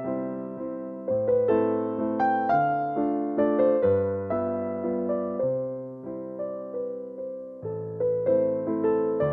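Background music: a gentle keyboard tune of single piano-like notes that strike and fade, over slow-changing bass notes.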